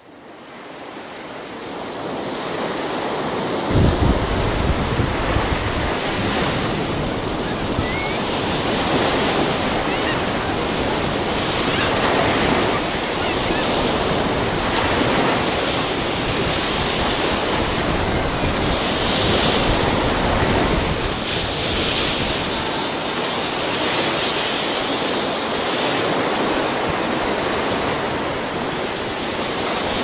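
Ocean surf breaking on the shore: a continuous rush of water that swells and eases with each wave, with wind rumbling on the microphone. The sound fades in over the first couple of seconds.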